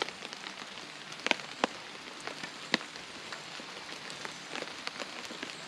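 Rain falling on a tarp shelter: a steady hiss with scattered sharp drop hits.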